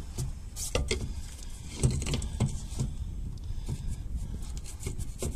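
Scattered light metal clinks and knocks as a steel wheel adapter plate is worked onto a car's bare hub studs and a lug nut is spun on by hand, over a low steady rumble.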